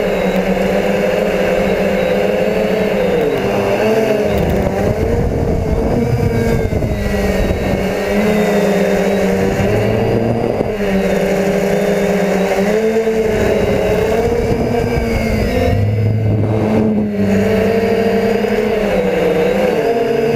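DJI F450 quadcopter's brushless motors and propellers buzzing steadily, heard from the camera mounted on the airframe; the pitch rises and dips every few seconds as the throttle changes.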